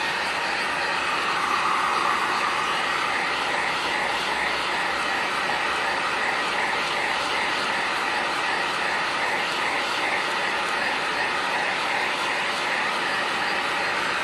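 Ryobi heat gun running steadily, its fan blowing hot air onto tail light tint film to soften it.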